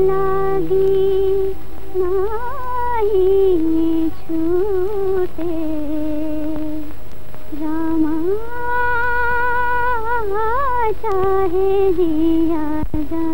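A woman humming a slow, ornamented film-song melody with vibrato, in long held phrases, over a soft steady drone, from an old film soundtrack.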